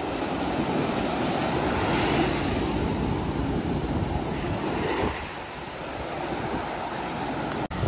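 Ocean surf breaking and washing up a sandy beach, a steady rushing wash that eases briefly about five seconds in and cuts out for an instant near the end.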